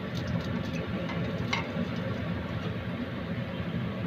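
Steady low background hum with a few faint soft taps, one about a second and a half in, as fried gulab jamun balls are put one by one into sugar syrup in an iron kadhai.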